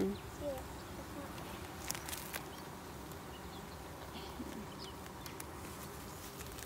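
Honeybee colony humming steadily from the open hive box, with a few sharp clicks about two seconds in as a wooden frame is worked loose.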